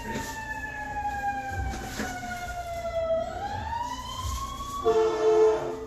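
A siren wailing, its pitch falling slowly for about three seconds and then rising again. Near the end a louder, steady tone with several pitches sounds for about a second.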